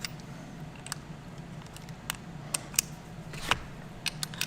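Irregular sharp clicks and small knocks of a hand crimper's quick-change jaw dies being pressed out and a new set slotted in, the loudest knock about three and a half seconds in.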